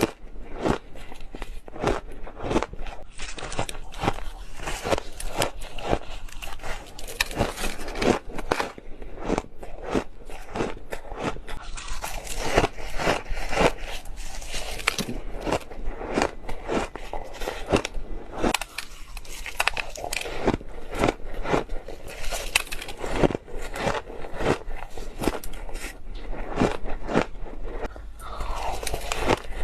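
Ice being bitten and crunched between the teeth close to the microphone, a rapid, continuous series of sharp crunches.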